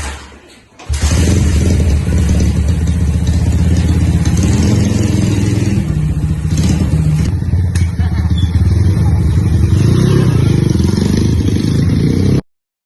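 Motorcycle engine running steadily and loudly close by, starting about a second in and cutting off suddenly near the end.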